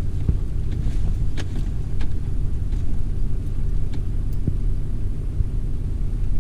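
Pickup truck heard from inside the cab while driving: a steady low engine and road rumble with a few faint clicks or rattles.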